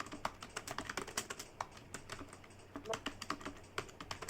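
Computer keyboard being typed on quickly, a fast uneven run of keystroke clicks several a second.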